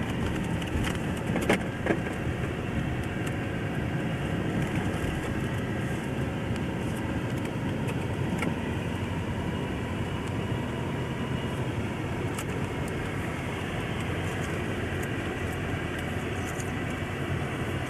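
Steady road and engine noise of a moving car, heard from inside the cabin, with a couple of light clicks about a second and a half and two seconds in.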